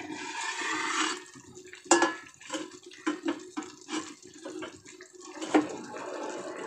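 Soya chunk curry simmering in an open steel kadhai on a gas burner: the gravy bubbles and pops in many small irregular plops. A short hiss as the lid comes off at the start, and a sharp metal click about two seconds in.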